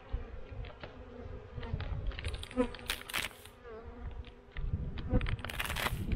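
Honey bees buzzing over an open hive, with plastic wrap crinkling in short bursts as the wrapper is peeled back from a pollen patty on the top bars; the crinkling is loudest about three seconds in and again near the end.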